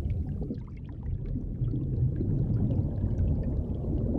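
Underwater ambience: a steady, low, muffled rush of water with faint scattered ticks and crackles.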